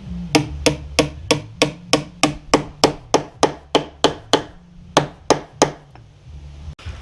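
Hammer blows on wood at a steady pace of about three a second: about fifteen strikes, a short pause, then three more.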